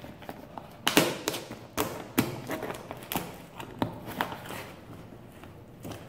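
A cardboard box sealed with packing tape being worked open by hand: a string of sharp taps, knocks and scratches on the cardboard and tape, about eight in the first four seconds, thinning out toward the end.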